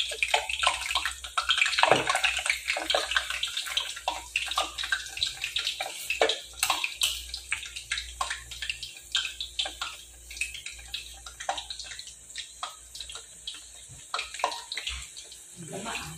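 Banana blossom patties sizzling as they fry in oil, a steady hiss full of small crackling pops, busiest in the first few seconds.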